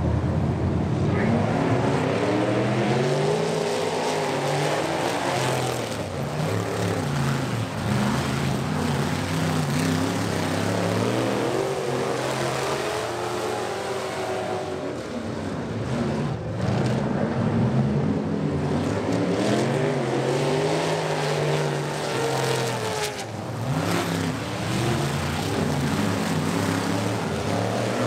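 Several dirt-track race trucks' engines running hard during a race, revving up and backing off again and again, their pitch rising and falling as trucks accelerate and pass one after another.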